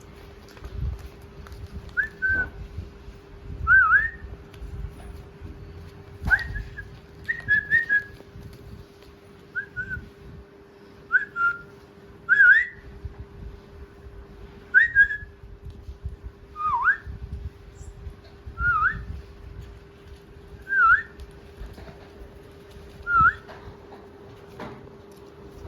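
A pet parrot giving short whistled calls, about a dozen quick swooping notes spaced a second or two apart, over soft low rustling and knocks and a faint steady hum.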